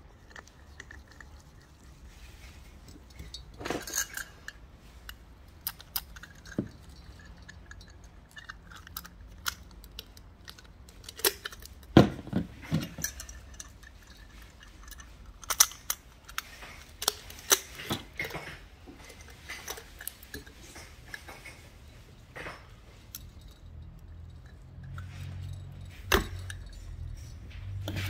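Irregular clicks, taps and light clinks of small metal fittings and glass pieces of a mosaic lamp being handled and fitted together, with a sharper knock about twelve seconds in.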